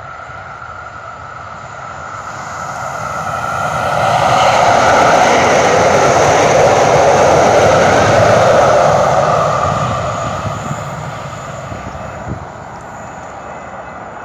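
Calgary Transit light rail train passing close by on its tracks. Its running noise builds over the first few seconds, stays loud for about five seconds, then fades away.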